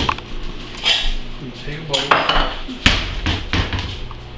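A spoon clattering and scraping in a plastic mixing bowl as a sauced meat mixture is stirred: a run of knocks and scrapes, the sharpest about three seconds in.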